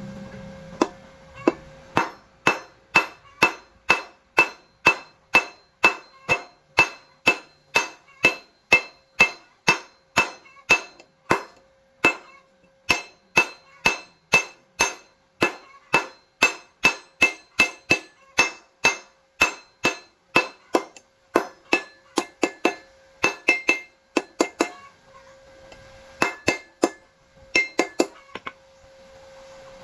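Hammer striking steel bar, a steady run of about two ringing metallic blows a second, then a few quicker strikes close together near the end.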